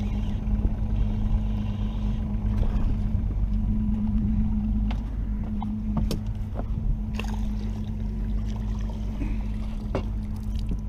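Steady low hum of a boat's motor, with scattered light clicks and knocks from handling.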